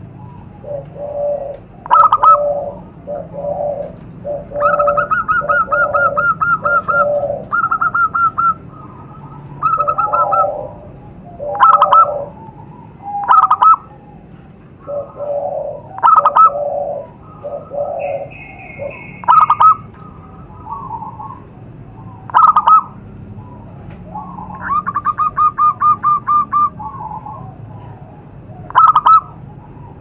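Zebra doves (perkutut) cooing: short phrases of quick, stuttering coos repeated every second or two, with several much louder, sharp notes scattered through.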